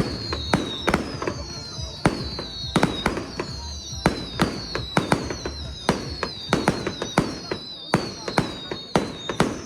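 Fireworks display: a rapid string of sharp bangs and crackles, with shrill whistles that slide down in pitch about once a second.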